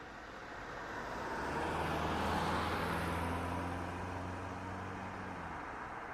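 A car driving past: tyre and engine noise swells to its loudest about two and a half seconds in, then fades as it moves away, with a low engine hum underneath.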